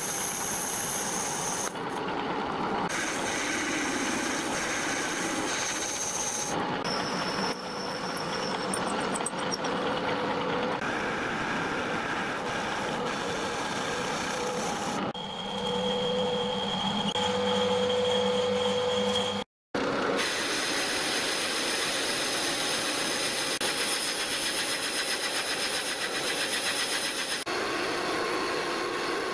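Metal-turning lathe running and cutting steel bar stock into gear blanks: a steady machine hum with faint steady tones over the hiss of the cut. It changes abruptly a few times and drops out for a moment about two-thirds of the way in.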